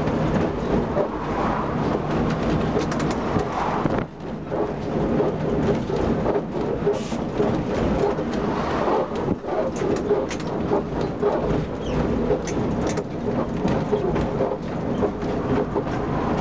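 Old wooden electric tram running along its rails, heard from on board: a steady rumble and rattle of wheels, running gear and car body, with scattered clicks and a short dip about four seconds in.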